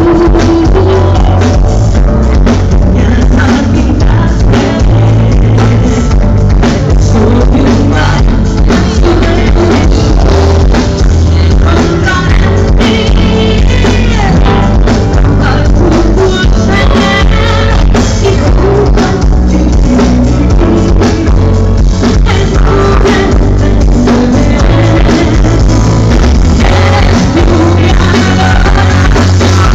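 Live concert recording of a pop-rock band playing, with drums, bass and a steady beat, and a woman singing lead over them.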